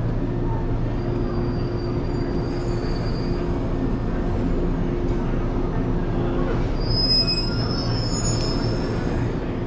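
Shinano Railway 115-series electric train pulling into the platform: a steady low rumble of motors and wheels on rail, with a high-pitched wheel squeal about two and a half seconds in and again from about seven seconds.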